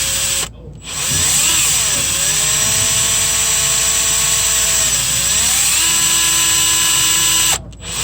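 Power drill drilling into a broken EGR bolt, its motor whine rising and falling in pitch as the trigger is varied. It stops briefly about half a second in, runs at a lower, steady pitch toward the end, then stops again.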